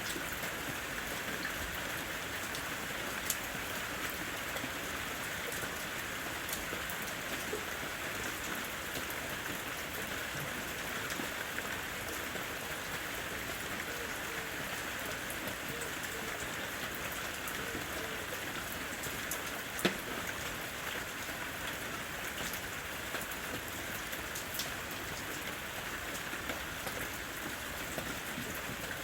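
Steady rain falling in a forest, an even hiss with scattered close drops ticking, one louder drop about twenty seconds in.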